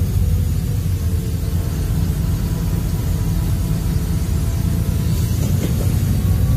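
Interior noise of a LiAZ 5292.22-01 city bus under way: steady low rumble of its MAN compressed-natural-gas engine and road noise, with a faint steady whine.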